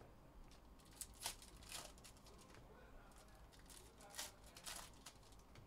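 Faint, short rustles and swishes of trading cards and a foil pack wrapper being handled, about five brief scrapes in two clusters.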